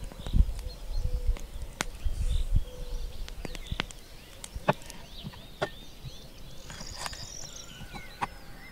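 Birds chirping in the background, with scattered sharp clicks and knocks and a run of low thumps in the first three seconds.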